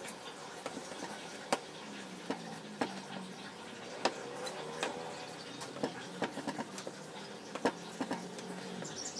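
Kitchen knife cutting a sheet of soft rice-flour dough into noodles on a stainless steel work surface: scattered, irregular light taps and clicks as the blade presses through and meets the metal.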